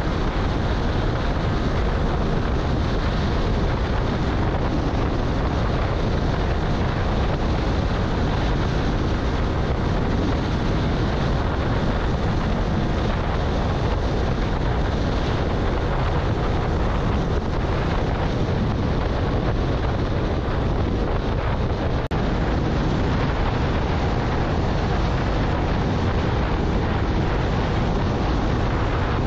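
Steady wind rush on the microphone at about 110 km/h, with the Piaggio Medley 125 scooter's single-cylinder engine held at full throttle underneath.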